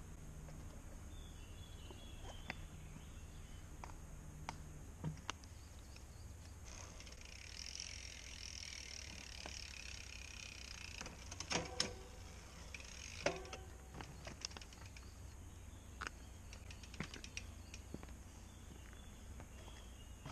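Quiet outdoor ambience with a low steady rumble and faint bird chirps, overlaid by scattered clicks and knocks from a mountain bike being handled and lifted, the loudest cluster a little past halfway through.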